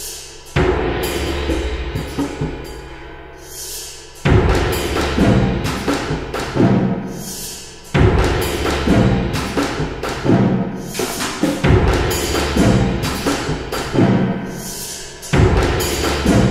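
Background music with percussion: repeated knocks and drum hits over sustained tones, with a louder phrase starting about every four seconds.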